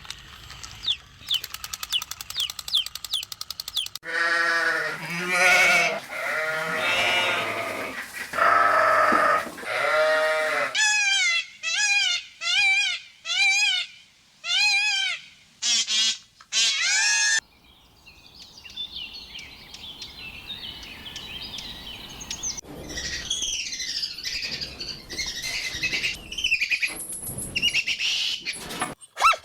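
Several different animal calls one after another: a fast high trill, pitched calls, then a run of short calls repeated about once a second. The last part is a long stretch of high bird chirping.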